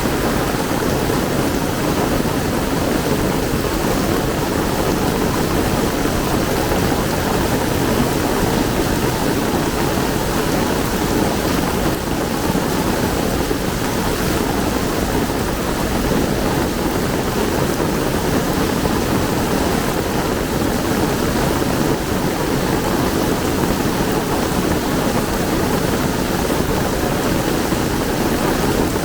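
Heavy rain pouring down steadily, a dense even hiss without breaks.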